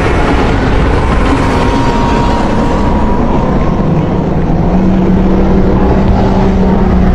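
A loud, steady, rumbling monster sound effect made for Godzilla, with a low hum that comes in about four seconds in.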